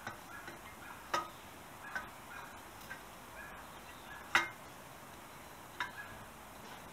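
A few sharp metal clinks and knocks as a freshly painted exhaust is fitted back onto a Suzuki FZ50 moped. The loudest comes about four seconds in.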